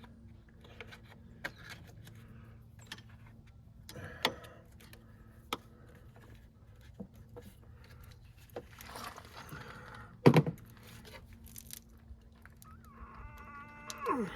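Scattered clicks, taps and light metallic jangling of hand tools and plastic engine-bay parts being handled, with one sharper knock about ten seconds in.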